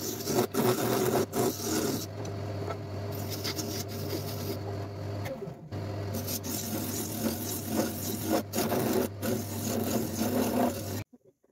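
Tool rasping and rubbing on wood, a steady scraping with a low hum under it, broken by several abrupt cuts and stopping suddenly near the end.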